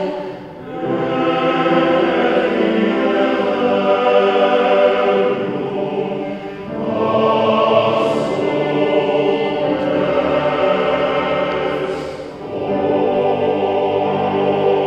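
A choir singing slow, sustained chords in three phrases, with short breaths between them about half a second, six and a half and twelve and a half seconds in.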